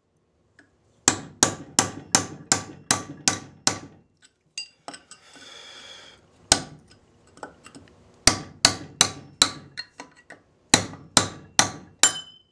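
Hammer blows, metal on metal, on a steel tool held against the old bushing's steel sleeve on a control arm rod clamped in a vise, driving the ground-thin sleeve off. Sharp ringing strikes come in three quick runs of about three blows a second, with a single blow between the first and second runs.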